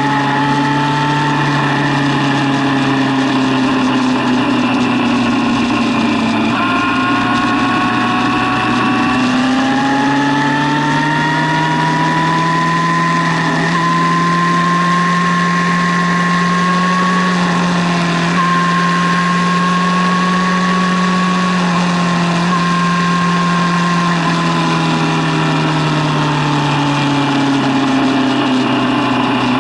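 A 2008 Yamaha FZ6's 600 cc inline-four engine running hard on track, heard from onboard: its pitch steps up sharply about seven seconds in, climbs steadily, holds high and even for about ten seconds, then falls away near the end, over a steady rush of wind noise.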